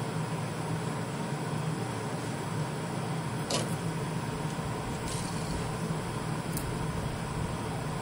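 A steady mechanical hum with a low drone, broken by three light clicks a second or so apart about halfway through.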